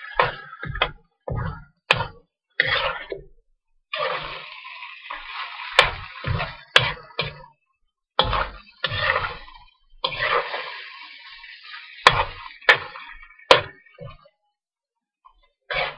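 A long-handled metal spoon scraping and clinking against a steel wok as chicken pieces are stir-fried on high heat, with sizzling under each stroke. The strokes come in irregular bursts with sharp metallic clinks, the loudest around the middle and near the end, then go quiet about two seconds before the end with one last short scrape.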